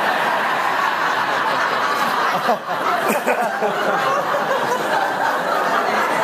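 Audience of many people talking over one another, with laughter mixed in: a steady, loud hubbub of chatter.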